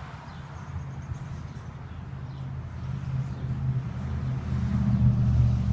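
Low, steady engine rumble of a passing vehicle, growing louder through the second half.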